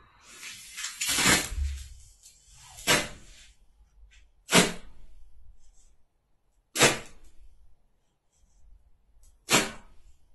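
White strobe pyrotechnic composition of potassium perchlorate, magnalium and hexamine burning in pulses: five short, sharp bursts of sound, unevenly spaced about two seconds apart, the first longer with a low rumble.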